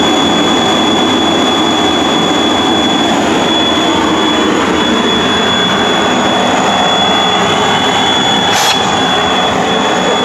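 Regenerative (side-channel) blower serving as the vacuum pump for a CNC router's hold-down table, running at full speed: a loud, steady rush of air with a high, steady whine.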